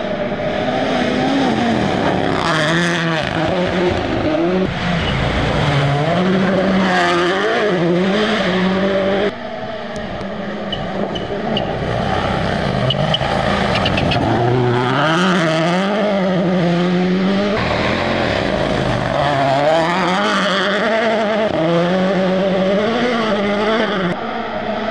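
Toyota Yaris Rally1 car's turbocharged four-cylinder engine revving hard, its pitch rising and falling again and again through gear changes and lifts, with gravel and tyre noise beneath. The sound breaks off abruptly about nine seconds in and picks up again as another pass.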